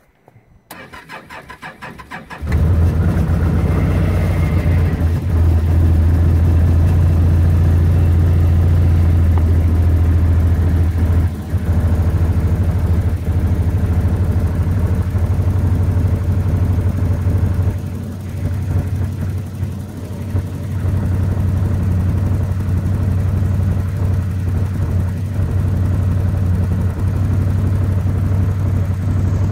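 Can-Am Commander 1000 XT's V-twin engine on a cold start: the starter cranks for about two seconds, then the engine catches and runs steadily, wavering briefly twice later on.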